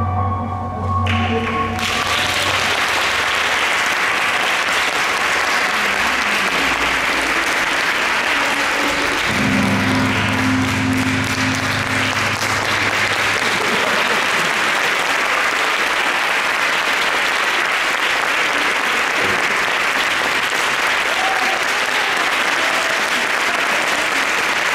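Music cuts off about two seconds in as an audience breaks into applause, which continues steadily. Low musical notes sound faintly beneath the clapping for a few seconds midway.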